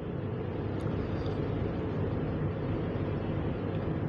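Mutton pieces deep-frying in a large pan of hot oil and rendered fat: a steady, dense bubbling sizzle as the freshly added raw meat begins to brown.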